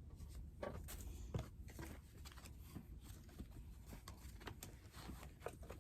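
Faint small taps and rustles of craft pieces being handled, over a low steady hum.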